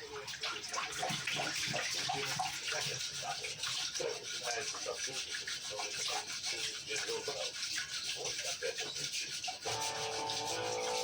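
Rapid, repeated scraping and rubbing strokes on a cooking pot, going on without a break.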